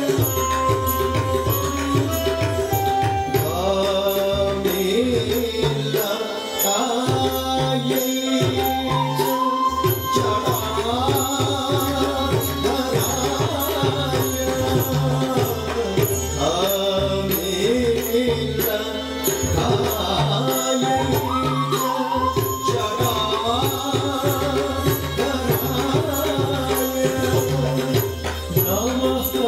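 Odissi dance music: a singer over the strokes of a two-headed mardala drum, with small hand cymbals ticking at an even beat.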